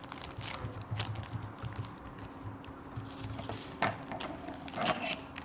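Irregular light clicks and taps, as of small objects being handled, with the loudest two nearer the end, over a steady low hum.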